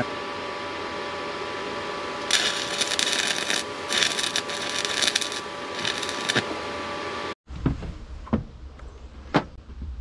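Arc welder laying three short tack welds: a crackling, sizzling hiss in three bursts of about one to one and a half seconds each, over a steady electrical hum. The hum stops abruptly about three-quarters through, followed by a few scattered sharp clicks.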